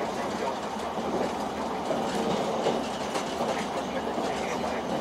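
Limited express Sonic electric train running at speed, heard from inside the passenger cabin: a steady rumble of wheels on rails with faint, scattered clicks of the wheels passing over rail joints.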